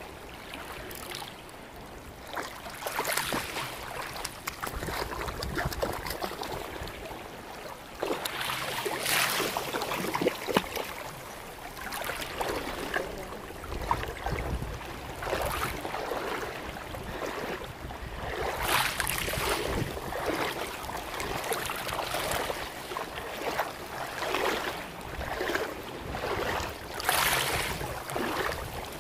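Shallow seawater splashing and sloshing around wading legs, in irregular surges every second or two.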